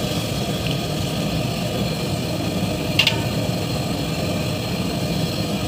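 A steady low rumble, with a single sharp clink of a metal utensil against the aluminium cooking pot about three seconds in.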